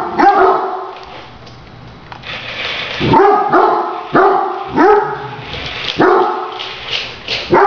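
Great Dane barking: a couple of barks at the start, then a quiet stretch, then a run of about six deep barks about half a second to a second apart.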